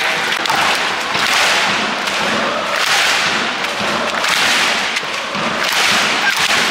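Football stadium crowd clapping and cheering, a dense crackle of many hands with swells about every second and a half.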